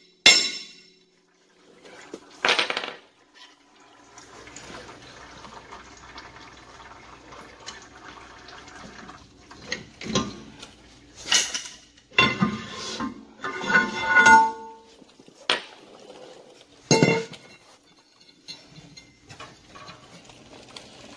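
Metal clanks and clinks as a school bus's rear axle shaft is worked loose and slid out of the hub, with a few seconds of steady trickling near the start as oil runs from the hub. A burst of clanks comes in the middle and a last knock near the end.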